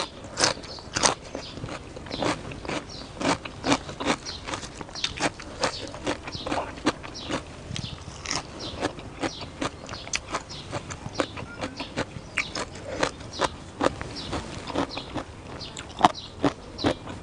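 Close-up crunching and chewing of raw cucumber, many crisp crunches about two or three a second.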